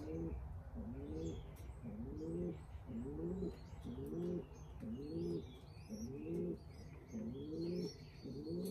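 Racing pigeons cooing, a short low call repeated over and over about every half second, with fainter high chirps over it.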